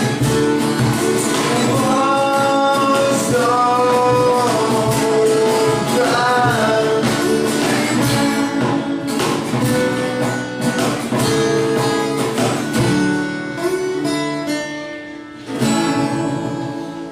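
Acoustic band playing: strummed acoustic guitars with singing, cajón and acoustic bass. Near the end a last strummed chord rings out and fades.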